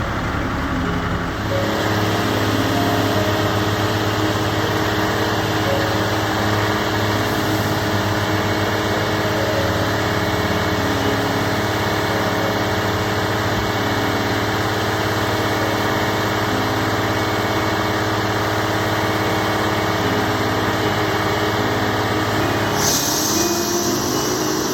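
A small engine running steadily at a constant speed, with a change in the sound near the end.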